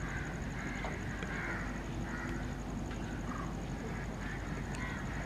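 Birds calling repeatedly in short calls, over a steady low background rumble and a faint steady high tone.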